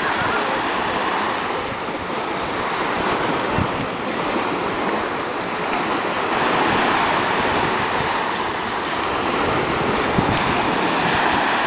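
Small surf breaking and washing up a sandy beach, a steady rushing that swells a little around the middle, with some wind on the microphone.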